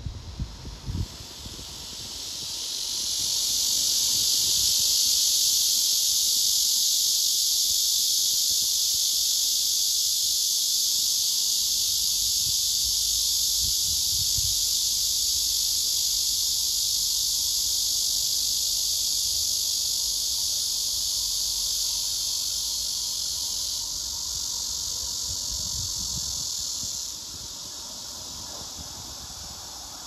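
Male cicadas singing: one loud, steady, high-pitched buzz that swells over the first few seconds, holds, and drops away sharply near the end, leaving fainter cicada buzzing behind it.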